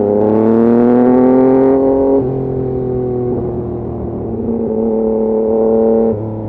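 Yamaha MT-09's inline three-cylinder engine revved twice, each time held at raised revs for a second or two before dropping back to a steady idle note about two seconds in and again near the end.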